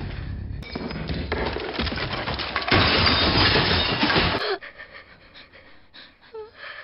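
Framed pictures falling and crashing down a wooden staircase, glass and wood breaking, louder in the last second and a half before it cuts off sharply about four and a half seconds in.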